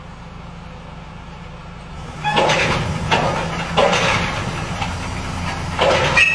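Heavy truck's engine running low, then from about two seconds in a series of loud hissing bursts of released air from its air brake and suspension system.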